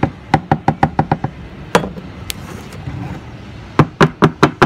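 Split bamboo pot packed with soil knocked repeatedly against a wooden table: a quick run of hollow knocks at about seven a second, one lone knock, then another fast run near the end.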